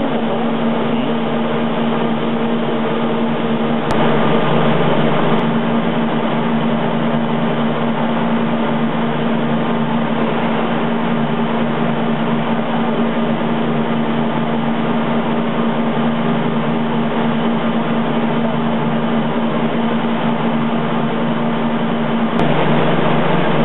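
Echea B-800 heavy-duty lathe running under power: a steady motor hum and whir, a little louder briefly about four seconds in and again near the end.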